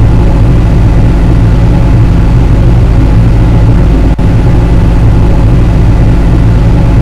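Loud, steady low engine drone heard inside a heavy vehicle's cabin: the kind of cabin noise that active noise cancelling is meant to remove. It has a brief dip about four seconds in.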